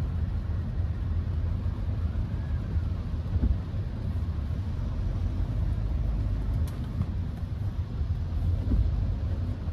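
Steady low rumble inside a Hyundai HB20 1.6's cabin in slow traffic in the rain: engine, road and rain noise. A faint siren tone rises and falls once about two seconds in.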